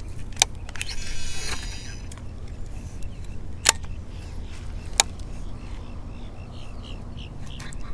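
Baitcasting reel as a jig is flipped out: the spool whirs briefly about a second in, then come a few sharp clicks and light ticking from the reel as the bait is worked, over a steady low rumble.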